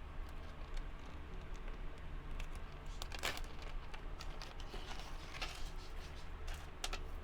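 Necklace packaging being handled and unwrapped: crinkling and rustling with scattered small clicks, the loudest crinkles about three and five and a half seconds in.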